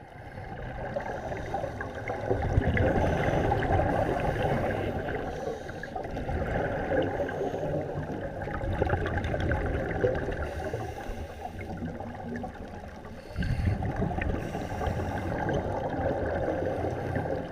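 Scuba divers' exhaled bubbles and regulator breathing heard underwater: a muffled, uneven bubbling hiss and rumble that swells and eases, louder about two seconds in and again near the end.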